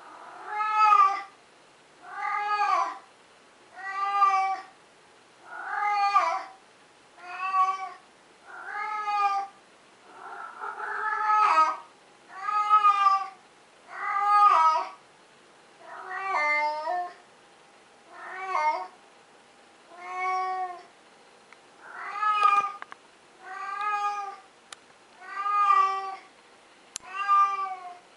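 Domestic cat meowing over and over, one call roughly every second and a half to two seconds, each meow rising and then falling in pitch.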